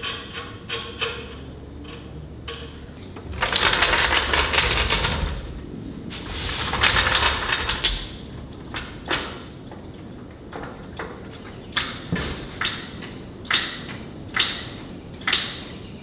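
A heavy-duty floor jack being worked under a truck's front axle: a couple of longer rattling stretches in the first half, then sharp metallic clicks about once a second, like the strokes of the jack handle being pumped.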